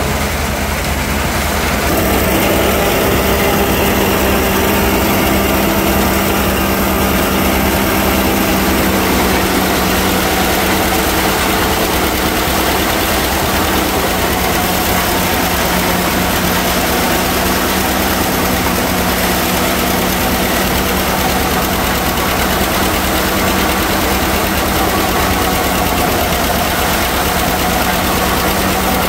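John Deere 60 tractor's two-cylinder engine running steadily, with a low, even firing beat.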